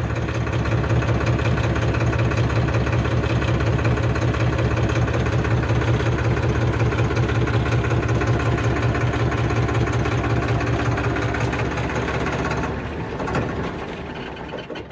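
Tractor diesel engine idling steadily, heard from inside a closed, sound-damped AC cabin. The sound drops away over the last couple of seconds.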